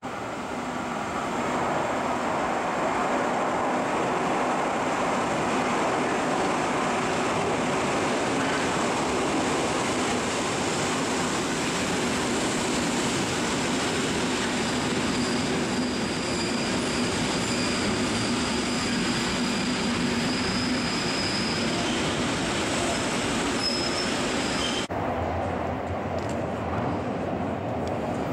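Koleje Mazowieckie electric multiple unit running along the platform of an underground station, a loud steady rumble of wheels on rails. A thin high squeal rises over it for several seconds midway. About 25 s in the sound cuts abruptly to a duller, steady low hum.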